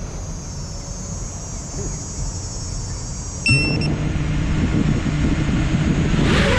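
Low steady outdoor rumble, then about three and a half seconds in an FPV quadcopter's electric motors start with a brief high tone and settle into a steady hum at idle. Near the end the motor pitch starts to climb as the throttle comes up for take-off.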